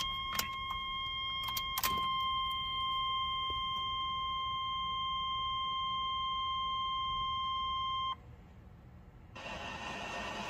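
Ignition key clicking as it is turned to the on position, and the Chevy S10's seatbelt warning buzzer sounding one steady high tone for about eight seconds before cutting off sharply. A short hiss follows near the end.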